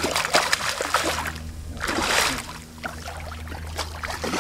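Hooked redfish thrashing at the water's surface, splashing: a run of splashes in the first second or so, a bigger splash about two seconds in, and smaller splashes near the end. A low steady hum runs underneath.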